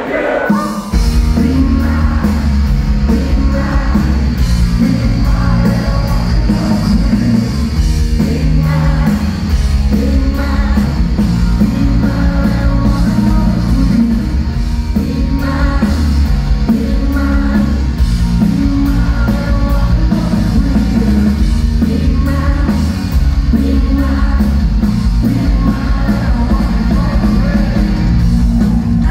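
Live three-piece rock band playing loud: electric guitar, bass guitar and drums, with a male voice singing. The full band comes in about a second in.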